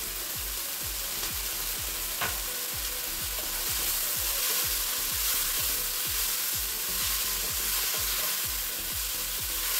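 Chopped tomato, onion and green chile sizzling in olive oil in a frying pan, stirred with a wooden spoon. A single knock about two seconds in.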